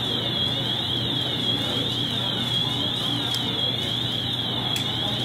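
Electronic alarm sounding a high warbling tone that rises and falls over and over, with a steady low hum underneath.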